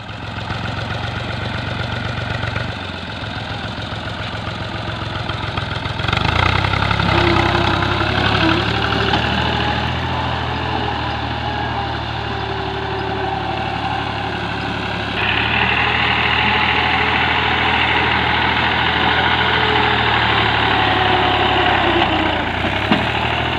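Farm tractor's diesel engine running as the tractor works its way out of soft paddy mud, getting louder about six seconds in and again about fifteen seconds in.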